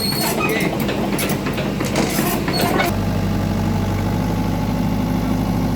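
Heavy diesel engine of earthmoving equipment running, with clanking and rattling over it for the first few seconds, then settling into a steady drone.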